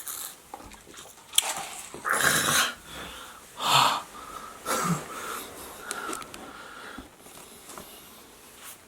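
A man making loud breathy vocal sounds without words: strong bursts about two and four seconds in, smaller ones around five and six seconds, then quieter.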